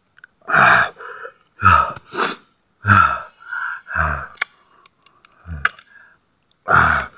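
A man groaning and gasping in about seven short bursts from the heat of a very spicy chili-and-salt green mango mix. A couple of sharp crunching bites into the mango come in the second half.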